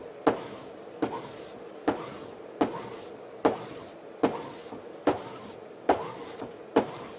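Denim strop on a narrow board, loaded with buffing compound, drawn over and over along the edge of a Ka-Bar machete: nine even strokes, about one every 0.8 s, each a sharp scrape that trails off quickly. The stropping polishes and blends in a thin carving section of the edge.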